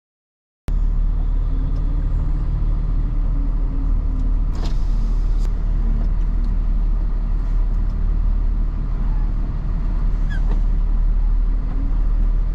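Tow truck's engine running, a steady low rumble heard from inside the cab, cutting in abruptly shortly after the start.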